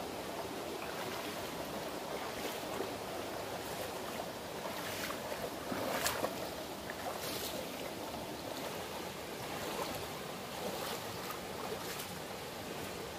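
Shallow rocky stream running steadily, with several splashes of feet wading through the water; the loudest splash comes about six seconds in.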